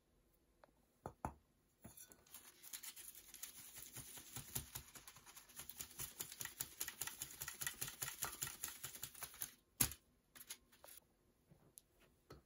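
Flour being sifted through a wooden-rimmed mesh sieve shaken back and forth over a metal tray: a rapid, rhythmic rasping and patter of the mesh and frame. It stops shortly before a single sharp knock about ten seconds in, followed by a few small scraping sounds.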